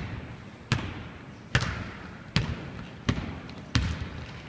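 Basketball dribbled on a hardwood gym floor, a slow, even bounce about every three-quarters of a second, each bounce echoing through the hall.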